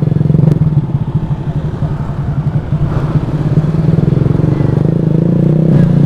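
Motorcycle engine through a loud open aftermarket SC Project exhaust (knalpot brong), running at low revs while riding. It eases off a little, then picks up again from about four seconds in as the throttle opens.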